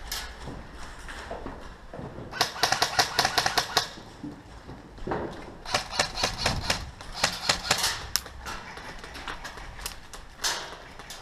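Airsoft rifle firing full-auto bursts: rapid, evenly spaced clicking in two bursts of one to two seconds each, then a short one near the end.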